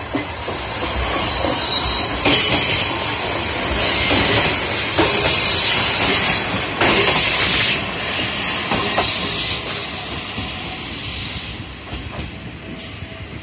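Former JNR KiHa 28 and KiHa 52 diesel railcars passing close by, running engines and wheels with repeated knocks over the rail joints. The sound is loudest as the cars go by, then fades steadily over the last few seconds as the train moves away.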